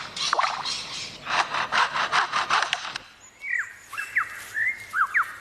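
Superb lyrebird mimicking foresters' chainsaws: a harsh, rasping saw-like buzz pulsing about five times a second. About three seconds in it breaks off into a run of short whistled notes that dip in pitch.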